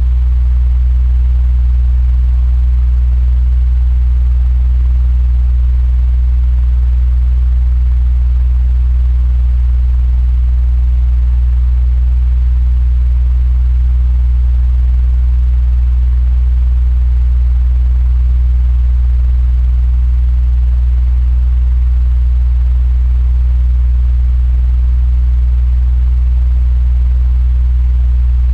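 Electric fan running steadily: a constant low hum with a faint hiss above it.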